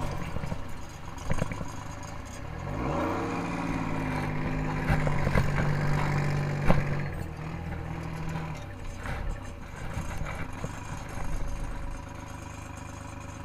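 Detroit Diesel engine in a 1951 Dodge M37 truck, heard from the open cab. It rises in pitch about three seconds in as the truck speeds up, holds a steady note for several seconds, then drops back to a quieter, lower idle with a few knocks near the end.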